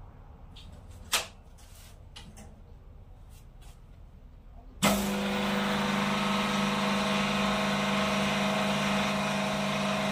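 A few light clicks and knocks of parts being set, one sharp click about a second in, then about five seconds in a hydraulic hose crimping machine's electric motor and pump start abruptly and run at a steady hum while it crimps the new adapter onto the breaker hose.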